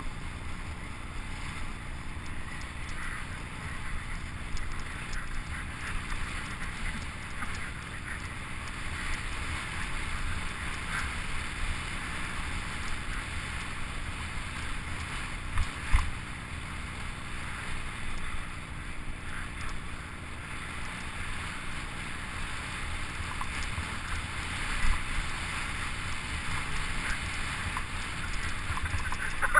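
Wind rushing over the camera microphone and a steady hiss of sliding over packed snow while coasting downhill, with no engine heard. A single sharp knock about halfway through.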